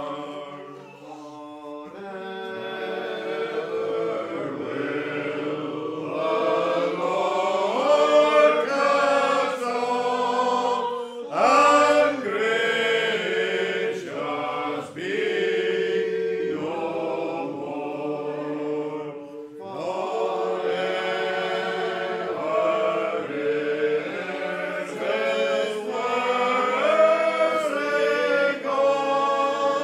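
Congregation singing a metrical psalm unaccompanied, slowly, in long held notes, with brief pauses between lines.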